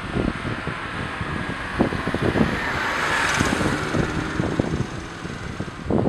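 Acura RSX Type S with its K20A2 engine driving, heard from the cabin, with many quick, irregular ticks and clicks over the running noise. This is the unexplained tick the owner is chasing, which he only gets to show while driving. A rushing swell rises and falls about halfway through.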